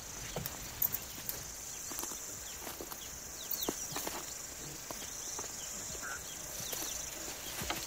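Outdoor natural ambience: a steady high-pitched hiss like insect buzz, with scattered clicks or steps and a few short falling chirps.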